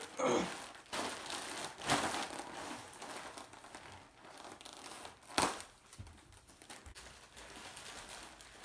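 Plastic mailer bag crinkling as it is torn open and handled, with one sharper, louder crackle a little past halfway.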